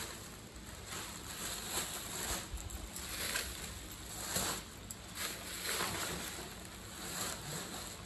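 Thin plastic grocery bags rustling and crinkling in irregular bursts as they are handled and moved.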